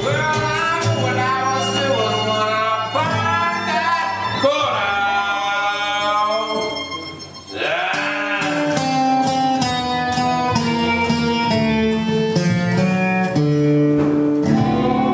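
Live acoustic bluegrass: two voices singing in harmony over mandolin, guitar and bass. After a short break about halfway, the fiddle takes a bowed instrumental break over the mandolin and guitar.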